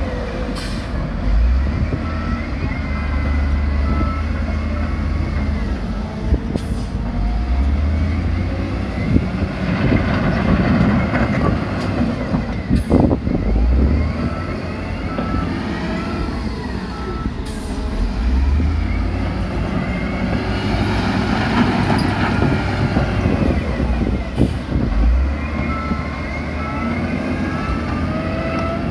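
Heavy diesel machinery, dump trucks and wheel loaders, running and revving in swells, with a few sharp knocks. A short run of evenly spaced beeps sounds three times.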